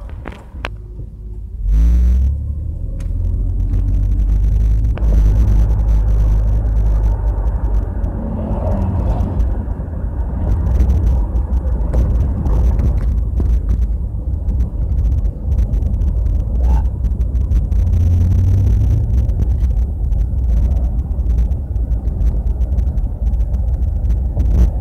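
Steady low rumble of a car on the move, heard from inside the cabin: road and wind noise. It jumps up in loudness about two seconds in and then holds.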